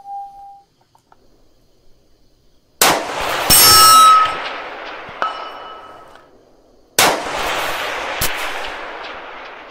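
Two 6.5 Creedmoor rifle shots about four seconds apart, each echoing away over a few seconds. A loud metallic clang with ringing comes about a second after the first shot, and shorter metallic clinks follow.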